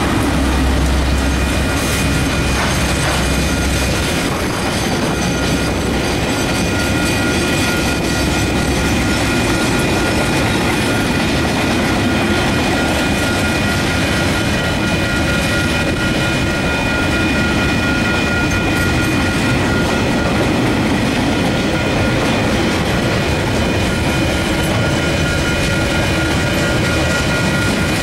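Freight train passing at close range: the deep rumble of its two DL-class diesel-electric locomotives fades over the first few seconds, then a long string of container wagons keeps rolling past with steady wheel noise. Several thin, steady high tones run above the rumble.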